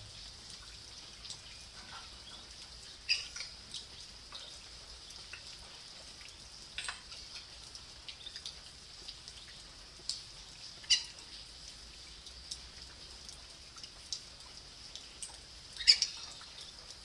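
Muscovy ducklings giving scattered short peeps over a steady hiss of light rain, the loudest peeps about eleven and sixteen seconds in.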